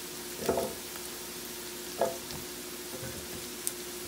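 Chopped onion frying in hot oil in a wok: a steady soft sizzle as the onion turns light pink. A faint steady hum runs underneath, and two short knocks come about half a second and two seconds in.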